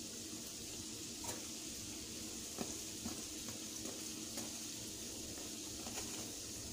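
Odading dough pieces deep-frying in a stainless steel pan of oil, a steady sizzle, with a few light clicks of metal tongs against the pan as the pieces are turned.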